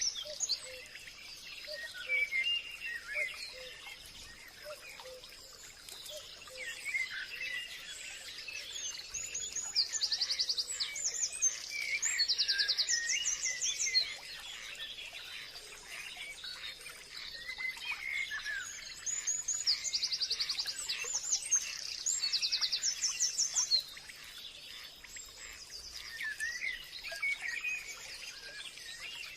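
Several wild birds singing and chirping in a forest chorus. A fast high trill comes in two spells, and a faint steady high tone runs underneath.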